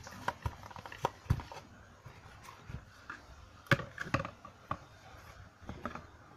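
Hands handling a small packaging box and its lid: a scattering of light knocks and taps, the sharpest a little before four seconds in.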